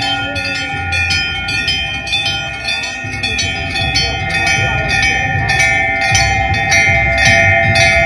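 Hanging temple bells rung by hand, struck over and over a few times a second so their tones keep ringing on and overlap, over a low rumble.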